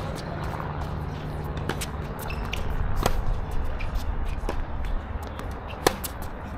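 Tennis rally on a hard court: rackets striking the ball about every second and a half, beginning with a serve. The near player's hits, the serve and a forehand near the end, are the loudest cracks, and the far player's returns sound fainter, over a low steady rumble.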